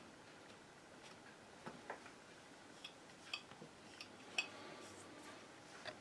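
Faint, irregular light taps and clicks of painting tools working at a canvas, about eight in all over a quiet room hiss.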